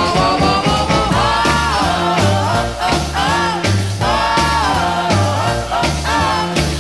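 1950s rock and roll song: a high lead vocal sung over a band with a bouncing, repeating bass line.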